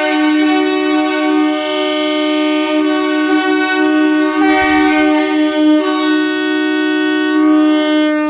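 Several train horns sounding together in one long, unbroken chord. Some of the tones change about halfway through.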